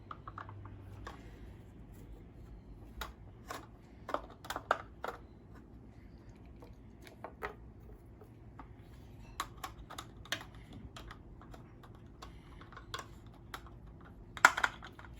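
Small plastic toy figures clicking and tapping against a hard plastic collector case as they are handled and pushed into its compartments. The irregular light clicks come in small clusters, with one louder knock near the end.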